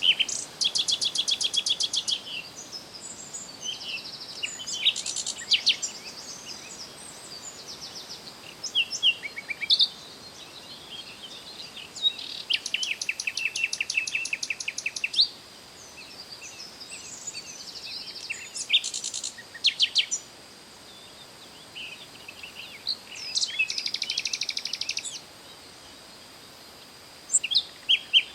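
Birds singing: several bouts of fast, evenly repeated high trills, each lasting one to three seconds, with short chirps scattered between them.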